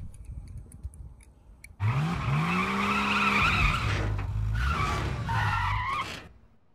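Race car sound effect: an engine revs up and holds while tyres screech, for about four seconds starting about two seconds in.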